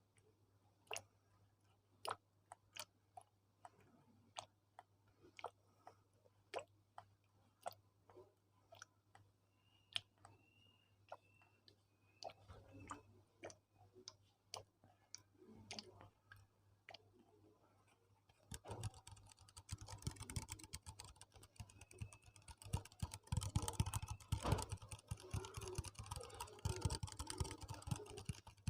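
Close-mic'd ASMR trigger sounds: sharp single clicks or taps about once a second, then about two-thirds of the way in a dense run of rapid, crackly clicks.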